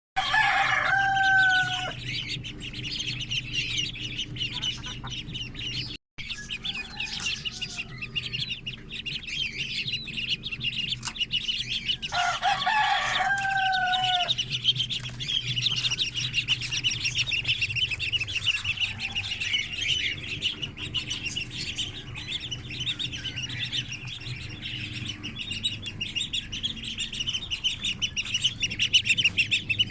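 A flock of pet parrots chirps and chatters continuously. A rooster crows twice, once at the start and again about twelve seconds in. A steady low hum runs underneath.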